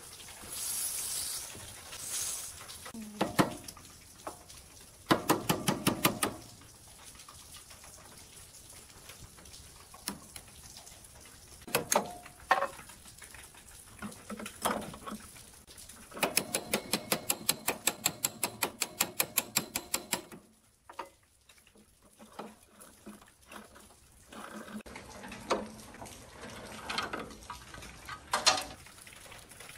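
Aerosol penetrating-oil spray hissing in two short bursts onto a rusty roller chain, then the rusty drive chain of a Hitachi A-1500A woodworking machine clicking and rattling link by link as it is worked around its sprocket by hand. Two runs of even clicks, about five a second, the longer one lasting some four seconds in the second half, with scattered metal clinks between.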